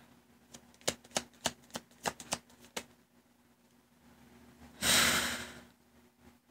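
Tarot cards shuffled and handled, a quick run of soft card clicks for about two seconds. About five seconds in comes a breath close to the microphone, the loudest sound here.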